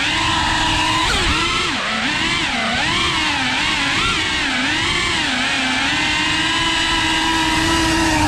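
FPV quadcopter's motors and propellers whining, the pitch swooping up and down quickly with throttle changes, then holding steady for the last couple of seconds.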